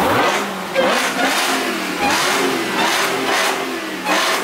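A car engine revved again and again, its pitch climbing and falling with each rev.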